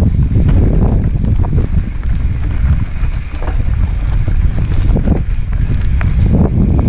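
Mountain bike riding down a rocky, rooty dirt trail: a steady low rumble of wind buffeting the helmet-camera microphone, with many scattered knocks and rattles as the tyres and frame bounce over rocks and roots.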